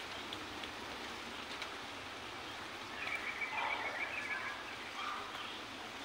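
A steady outdoor hiss with an animal call about three seconds in that lasts around a second and a half, and a shorter, fainter one about five seconds in.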